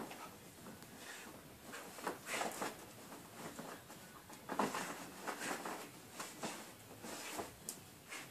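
Spanish water dog digging and pawing at fleece blankets and cloths in a whelping box, an irregular run of scratching and fabric rustling with a few louder scrapes. This is nesting, the bitch preparing her bed shortly before giving birth.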